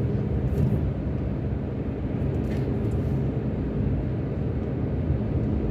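Car driving at road speed: a steady low rumble of engine and tyre noise.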